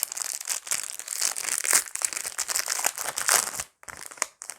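Foil Pokémon booster pack being opened by hand, its wrapper crinkling and tearing in a dense crackle. The crackle dies down to a few faint rustles about three and a half seconds in.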